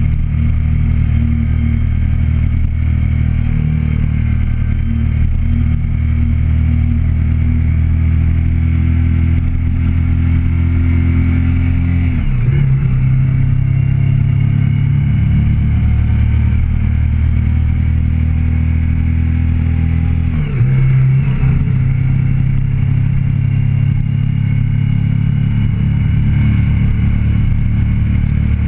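Motorcycle engine running steadily while riding down the road, heard close from the handlebars. Twice, about 12 and 20 seconds in, the engine note dips briefly and comes back higher.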